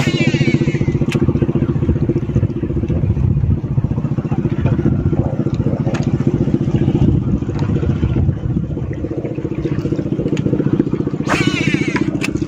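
A small boat engine running steadily with a fast, even putter. A brief higher-pitched sound comes just at the start and again about a second before the end.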